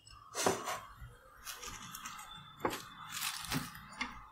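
Scattered handling noises: about five short rustles and clicks spread over a few seconds.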